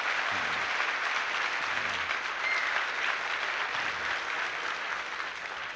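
Audience applauding steadily, with a few voices from the crowd underneath, tapering off slightly near the end.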